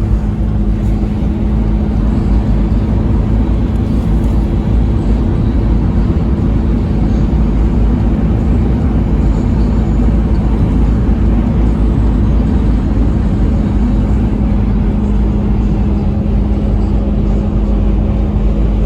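Car cabin noise while driving: a steady low road and engine rumble with a constant hum.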